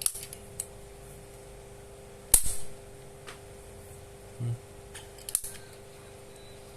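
Needle-free injector pen snapping: three sharp spring-loaded clicks, one right at the start, the loudest about two and a half seconds in, and one more about five seconds in, with smaller ticks between.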